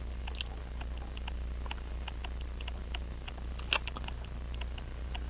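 Light, irregular clicks of metal tweezers and tiny parts being handled on a Hamilton 910 pocket watch movement during assembly, with one sharper click about two-thirds through, over a steady low hum.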